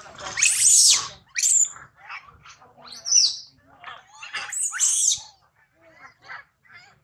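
Young long-tailed macaques screaming: a run of loud, high, shrill squeals that glide in pitch. They are loudest in the first second and again about three and five seconds in, with softer chatter between.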